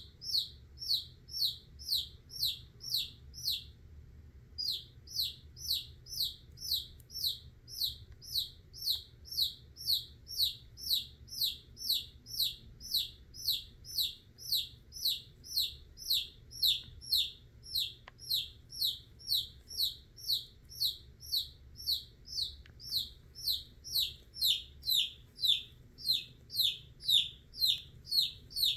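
A domestic chicken chick peeping over and over in distress while held in a constricting king snake's coils. The peeps are short and drop in pitch, come about two to three a second, and break off once for about a second near the start.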